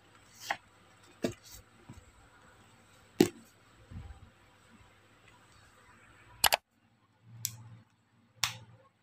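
Handling noises from a paperback book and a highlighter pen: soft paper rustles and light taps, with one sharp tap about three seconds in as the book is closed and the pen laid on it, then a few more isolated clicks near the end.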